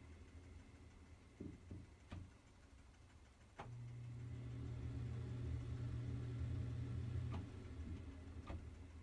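Switch clicks, then a Broan can-light exhaust fan starts and runs with a steady low hum that grows louder as it spins up; after a few seconds another click and the hum dies away, with one more click near the end.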